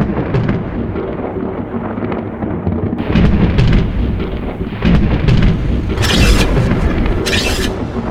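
Thunder-like sound effect in a designed soundtrack: a sudden crash, then a heavy low rumble throughout, with short hissing bursts about three, six and seven seconds in.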